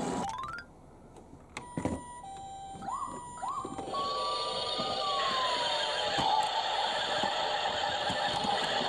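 Toy ambulance minicar's electronic siren: a click, then alternating high and low tones, then short rising chirps and a long tone that glides down. A steady rushing noise comes in at about four seconds and carries on under it.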